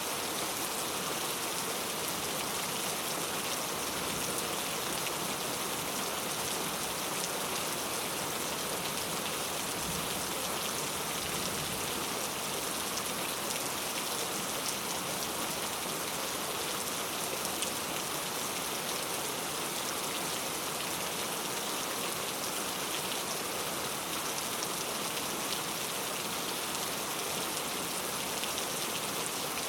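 Steady rain falling, an even hiss of many raindrops with fine scattered drop ticks.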